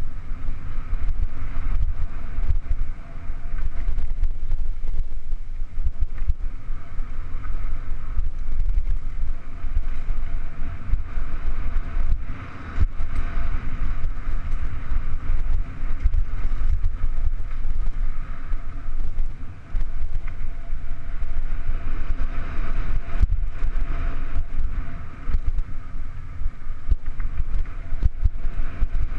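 Wind rushing over the mounted camera's microphone as a mountain bike rides fast down a dirt trail, a heavy low rumble with frequent small clicks and rattles from the bike going over the rough ground.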